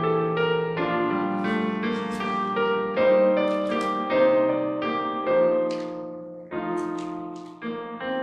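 Piano playing slow sustained chords as offertory music, with a new chord or melody note about every half second.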